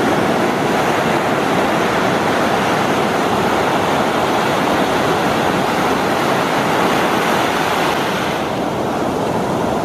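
Surf washing up a sandy beach: a steady, unbroken rushing of waves and swash.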